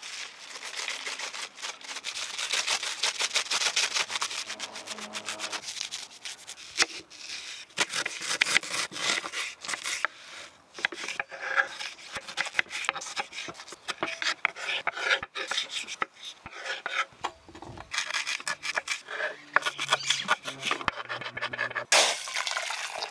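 Kitchen knife chopping sukuma wiki greens and slicing tomatoes on a wooden cutting board: a fast, uneven run of sharp taps on the wood. Near the end, water runs into an aluminium pot.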